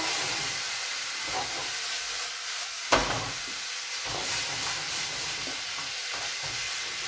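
Mixed grains sizzling in a frying pan and being stirred with a wooden spoon, a steady hiss with soft scraping. One sharp knock about three seconds in.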